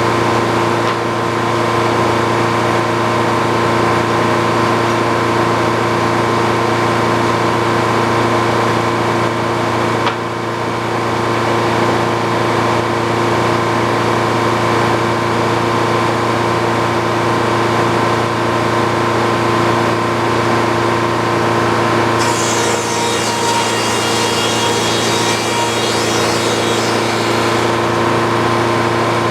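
Old Frick circular sawmill running with a steady hum and whine. About three-quarters of the way through, a higher, rasping sound rises over it for about six seconds as the saw cuts into wood.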